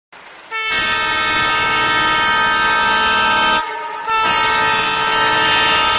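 Train horn sounding two long blasts, each a chord of several steady tones at once. The first lasts about three seconds, and the second starts about half a second after it ends.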